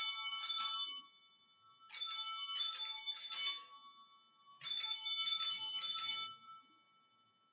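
Altar bells rung at the elevation of the chalice: three bursts about two and a half seconds apart, each a few quick shakes that ring on briefly, marking the consecration.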